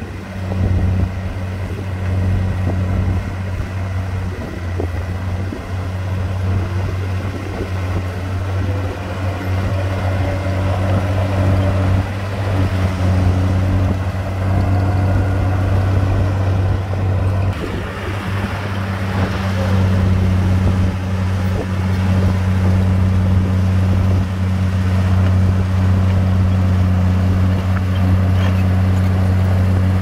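Komatsu D53P bulldozer's diesel engine running steadily with a low drone while working soil; about 17 seconds in a rougher, broader noise joins it and the sound gets somewhat louder.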